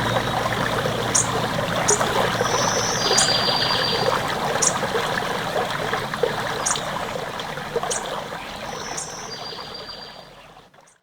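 Stream water running and trickling, with short high bird chirps about once a second and two brief trilled calls. The sound fades out near the end.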